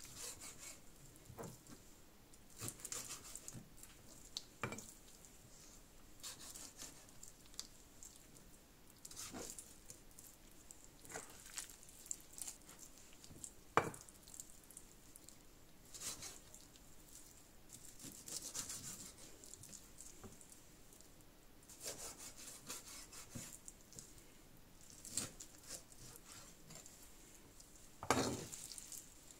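Chef's knife cutting raw chicken thighs on a plastic cutting board: soft scraping slices with the blade knocking on the board now and then, one sharp knock about 14 seconds in.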